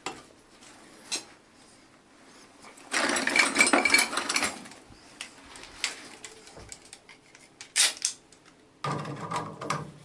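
Metal hand tools clinking and clattering: pliers and wrenches being handled and set against a tap's metal wall fitting, with a long rattling burst about three seconds in, scattered sharp clicks, and another burst of rattling near the end.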